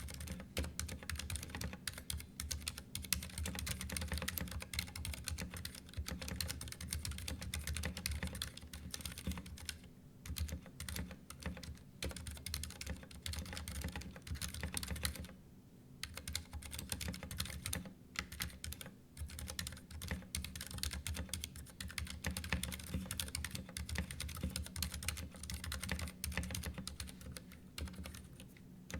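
Typing on a Ducky One 2 Mini 60% mechanical keyboard: a fast, continuous run of key clicks and clacks, with a few brief pauses.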